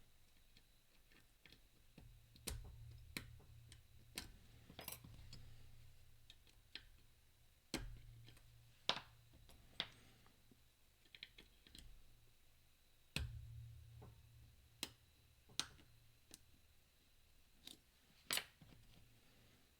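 Faint, irregular metallic clicks and ticks of lock picking tools working the discs of a Mindy flat pagoda disc padlock, a few louder clicks with a dull handling thud.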